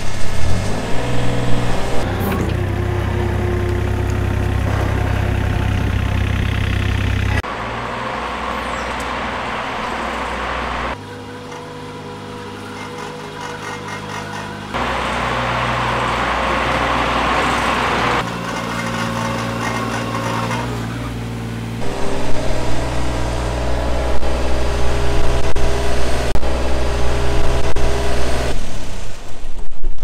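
Takeuchi TB230 mini excavator's diesel engine running as the machine tracks along on rubber tracks, in short recordings cut one after another. The level steps up or down at each cut, some stretches clearly quieter than others, as standard rubber tracks are compared with TerraTrack Plus tracks.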